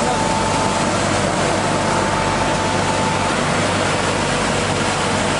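MTWCS1000 wide-belt sander running, a loud steady machine noise while a poplar snowboard core is fed in on its conveyor. A thin steady whine sits on top and fades out a little past halfway.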